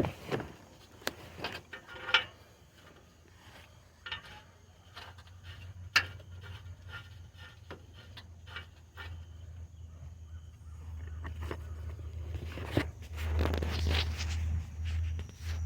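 Scattered clicks, knocks and scrapes of handling under the car while the camera is being repositioned. A low hum builds up in the second half and is loudest near the end.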